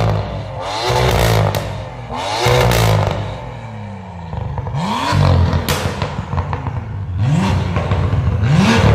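BMW M2 F87's turbocharged straight-six, breathing through a Fi Exhaust valved full system, blipped repeatedly at standstill. Each rev climbs quickly in pitch and falls back, one every second and a half to two seconds.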